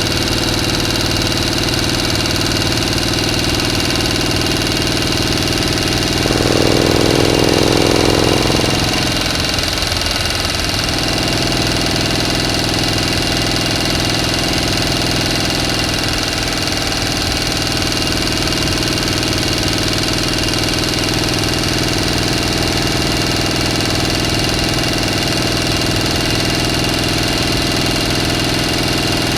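A motor running steadily, with one stretch about six seconds in where it gets louder for a couple of seconds before settling back.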